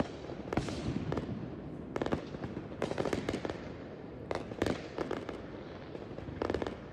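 Aerial fireworks going off: sharp bangs and pops every second or so, some single and some in quick clusters, with a tight run of pops near the end.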